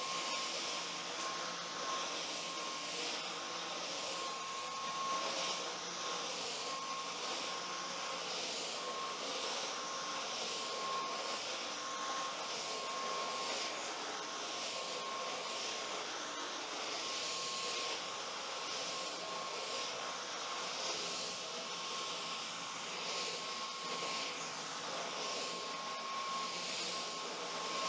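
Dyson Cyclone V10 Animal cordless stick vacuum running on its middle power setting, a steady high whine over the rush of air.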